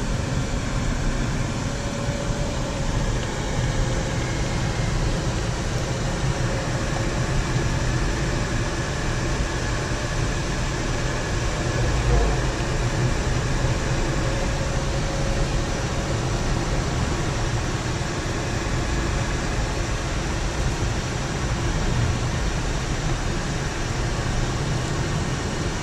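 Steady engine and road noise inside a moving car's cabin, with a low thump about halfway through.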